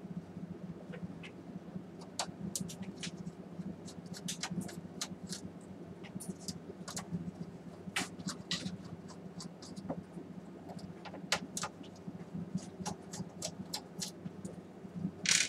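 Screwdriver turning screws in a projector's metal chassis: irregular small sharp clicks and ticks over a steady low hum, with a brief louder scrape near the end.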